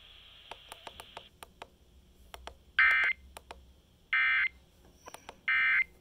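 Three short bursts of Emergency Alert System digital data tones, a buzzy warbling chirp about a second apart, played through an FM radio's speaker. They are the end-of-message signal closing a flash flood warning. Faint crackling clicks of FM static lie between them.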